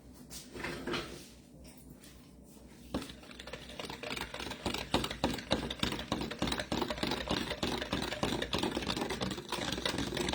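A utensil stirring a liquid sauce mixture in a bowl, with rapid, continuous clicking against the bowl starting about three seconds in.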